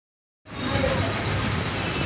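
Usha Janome Memory Craft 450E computerized embroidery machine stitching, running steadily with needle and rotary hook working; the sound starts abruptly about half a second in.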